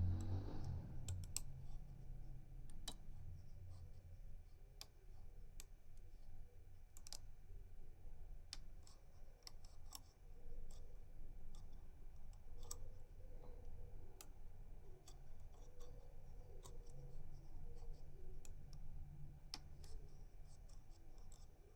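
Irregular small metallic clicks of a rotor pick working inside a pin-tumbler cylinder lock, the pins being set under light turning tension.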